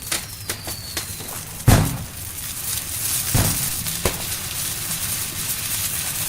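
Fireworks: a few sharp bangs, the loudest with a deep boom about two seconds in, then a dense crackling that carries on, with a faint falling whistle near the start.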